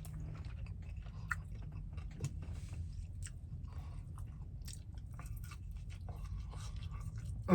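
A person chewing and biting food, with scattered small crunches and clicks, over a steady low hum.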